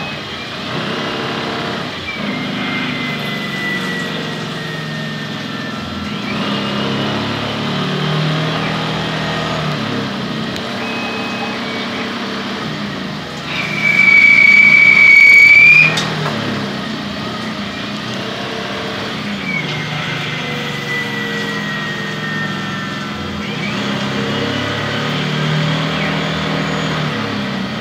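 Tormach 15L CNC lathe running a production cycle, turning bar stock: a steady machine sound whose motor tones step and glide in pitch as the spindle speed changes, with a slow falling whine twice. About halfway, a loud high-pitched squeal lasts about two seconds.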